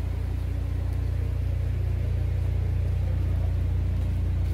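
A deep, steady low rumble with almost nothing above the bass, holding at an even level.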